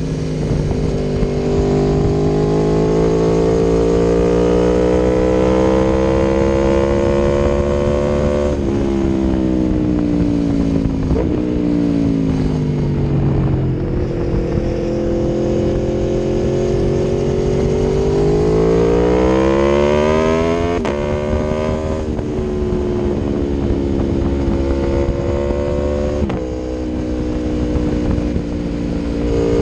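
Aprilia Tuono V4 1100's V4 engine through an Akrapovic exhaust under way, its pitch climbing under acceleration and sinking back off the throttle. The pitch drops suddenly three times, at gear changes: about a third of the way in, about two-thirds in, and near the end.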